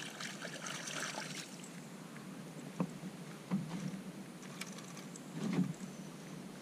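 A small hooked schoolie bass splashing at the water's surface for the first second or so as it is brought to the boat, then a few soft knocks and two short low thumps as it is swung aboard on the line.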